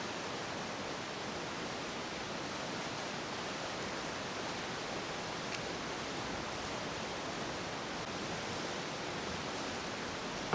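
Steady, even rushing noise with no distinct events, and one faint tick about halfway through.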